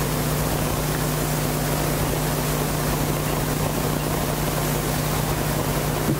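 Steady hiss-like background noise with a low, even hum underneath; no speech or music.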